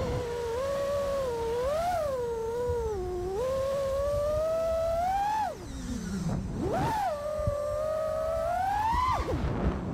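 Motors and propellers of a five-inch iFlight Nazgul 5 FPV quadcopter whining, heard from its onboard action camera, the pitch rising and falling with the throttle. About five and a half seconds in the whine drops away sharply as the throttle is cut, then climbs back up as the quad punches out again.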